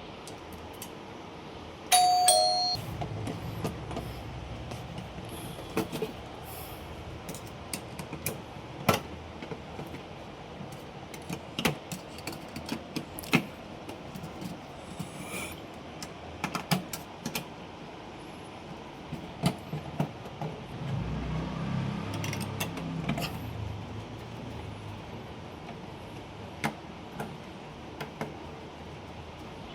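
Scattered sharp clicks and knocks of server hardware and tools being handled during a motherboard swap, with low rumbling handling noise in two stretches. A short two-note electronic chime sounds about two seconds in.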